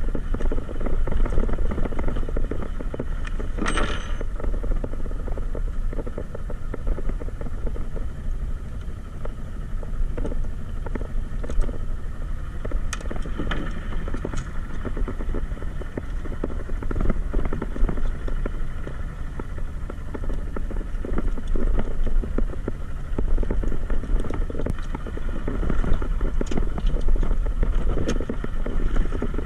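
Fishing boat's engine running steadily with a low rumble. A few short clicks and knocks sound over it, the clearest about four seconds in.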